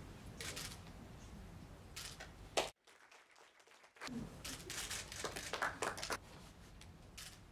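Rustling and handling noises in a room, short scattered bursts over low room noise. About two and a half seconds in, a sharp knock-like spike is followed by an abrupt drop to near silence for about a second before the rustling resumes, an edit cut in the soundtrack.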